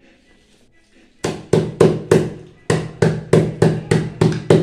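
Cleaver pounding lemongrass stalks on a cutting board to crush them: a steady run of sharp knocks, about four a second, starting about a second in, with a brief pause partway through.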